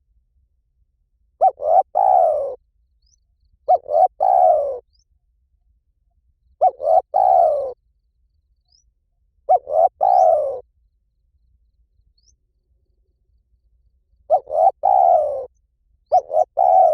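Spotted dove cooing: six phrases, each two or three quick short notes followed by a longer falling coo. The phrases come every two to three seconds, with a longer pause after the fourth.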